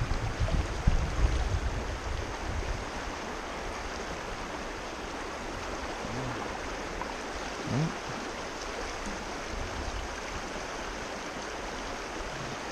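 River water rushing steadily over rocks in a rocky gorge, a continuous even hiss. A low rumble sits under it for the first couple of seconds and then dies away.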